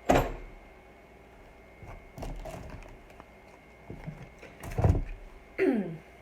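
Items and packaging being handled on a table during an unboxing: a few sharp knocks and rustles, with a short sliding scrape falling in pitch near the end.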